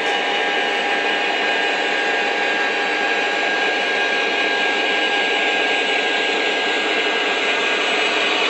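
Model train running on the layout out of sight: a steady whir of its electric motors and wheels on the rails, with a steady high whine over it, growing slightly louder near the end as it nears.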